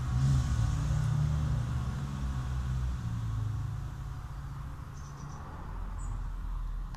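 Low background rumble, growing fainter over the first few seconds, with two brief faint high chirps near the end.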